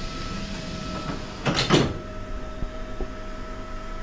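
A suburban train's sliding passenger doors closing, shutting with a thud about one and a half seconds in, over a steady hum.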